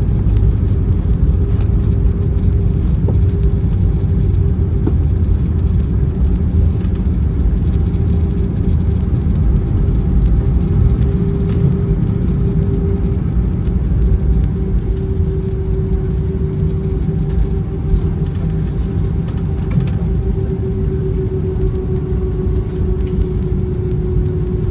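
Airbus A319's IAE V2500 engines and airframe heard from inside the cabin: a loud, steady low rumble with a constant hum over it that sags slightly in pitch toward the end.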